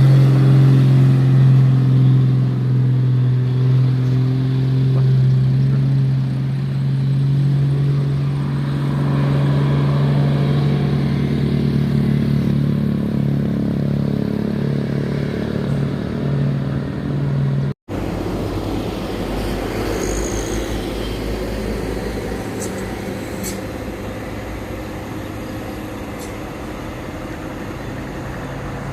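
A heavy road vehicle's engine drones steadily on a climb, its pitch holding and its level slowly falling. About eighteen seconds in the sound cuts off abruptly and gives way to a lower, rougher traffic rumble.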